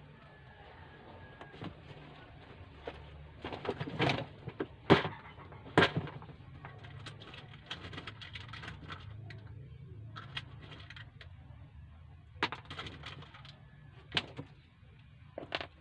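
Scattered clicks and light knocks of small parts and tools being handled on a workbench, loudest about five and six seconds in, over a low steady hum.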